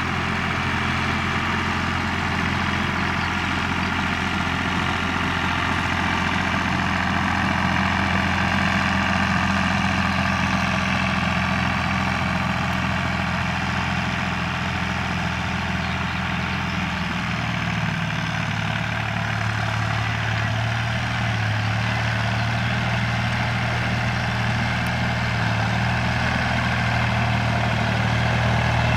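Universal 445 DT tractor's three-cylinder diesel engine running steadily under working load as it pulls a boom sprayer, its note shifting slightly a little past halfway.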